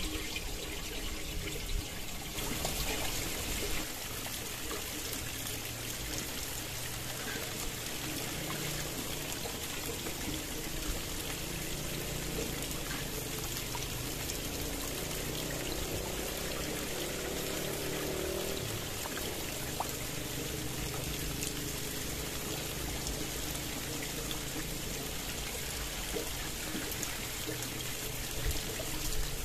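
Water of a stream flowing and trickling steadily.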